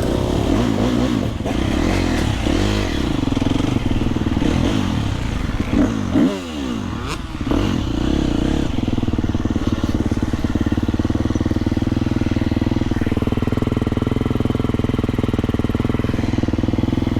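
Motocross bike engines revving with the pitch rising and falling as a bike pulls away. From about two-thirds of the way through, one engine runs at a steady, even pitch, as if idling.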